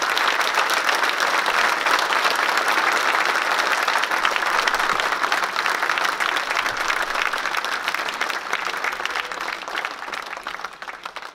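Crowd applauding, a dense patter of many hands clapping that tapers away near the end.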